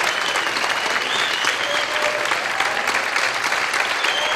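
Audience applauding at the end of a stage tango performance, a dense, steady clapping.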